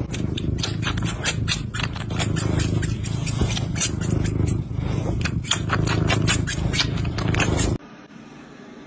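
A cat chewing gently on a person's finger, close to the microphone: rapid, irregular sharp clicks from its mouth and teeth over a steady low rumble. The sound cuts off abruptly near the end.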